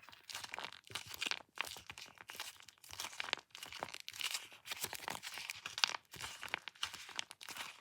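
Plastic packaging crinkling and crackling in quick, irregular handfuls as a taba squishy is handled.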